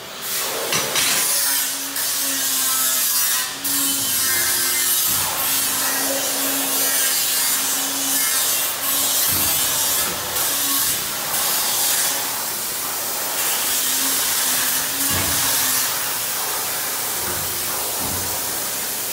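1995 Guifil PE2560 66-ton CNC hydraulic press brake cycling empty, with no part in the dies. It runs with a steady hiss and a hum that comes and goes, and several knocks as the ram strokes and returns.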